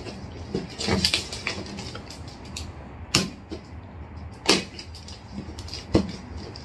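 Packing tape on a cardboard box being slit open with a small hand tool: a run of short, scratchy rips and taps, the sharpest about three, four and a half and six seconds in.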